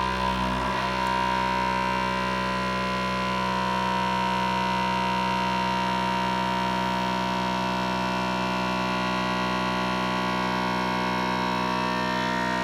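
Vacuum pump of an ExtractCraft Source Turbo running with a steady hum made of several fixed tones. It is pulling vacuum on a filter flask to draw the tincture through a Buchner funnel's paper filter.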